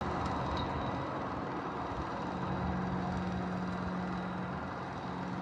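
Heavy farm machinery running steadily: an engine with a constant low hum under dense mechanical noise.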